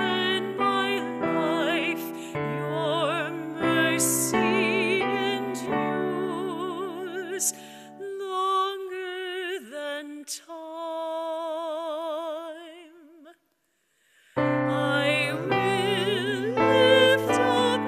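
A woman singing a hymn with vibrato to piano accompaniment. About eight seconds in the piano drops out and she holds a long note alone, which fades away; after a second's silence, voice and piano start up again.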